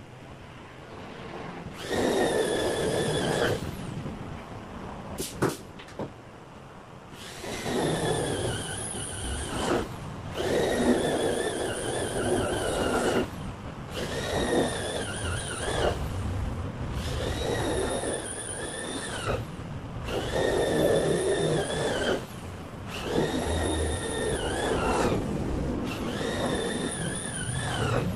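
Handheld electric drill run in repeated bursts of about two seconds, eight times, with short pauses between, its whine sagging in pitch as some bursts end. A few short clicks come just before the first burst.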